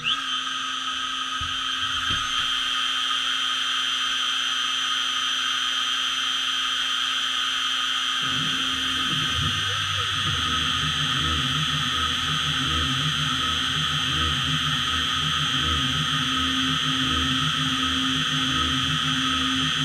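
Small CNC mill's spindle starting with a brief rising whine, then running with a steady high whine. About eight seconds in, a lower, pulsing sound joins as the end mill starts the adaptive contour, cutting into the outside of a white Delrin block.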